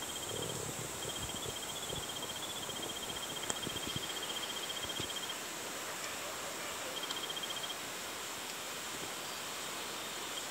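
An insect trilling in fast, even pulses: one long trill of about four seconds, then a shorter one later, over a steady high hiss.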